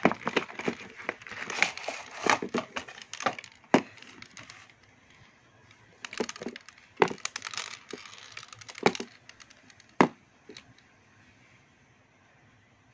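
Rigid clear plastic packaging being opened and a plastic pencil box pulled free: a busy run of plastic cracks and clicks for the first few seconds, then single sharp cracks spaced a second or two apart, the last about ten seconds in.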